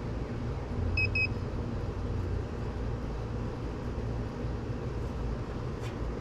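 Two quick high electronic beeps close together about a second in, over a steady low background rumble.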